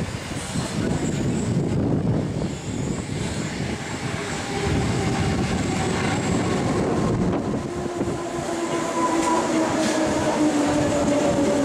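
Hamburg S-Bahn class 474 electric multiple unit pulling in along the platform and slowing to a stop, over a rumble of wheels on rail. From about four seconds in, its electric traction motors give a whine in several tones that slowly fall in pitch as it slows.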